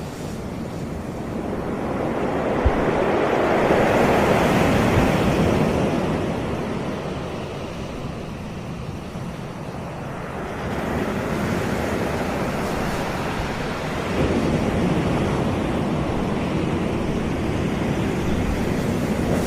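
Sea waves washing onto a beach: one wave swells about two seconds in, peaks a couple of seconds later and eases off, then further waves come in about ten and fourteen seconds in.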